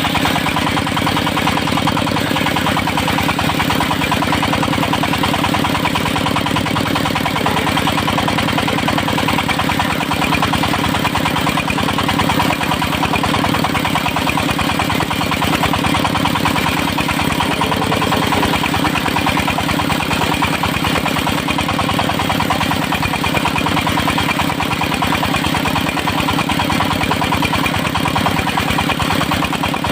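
Engine of a portable circular sawmill running steadily at an even speed.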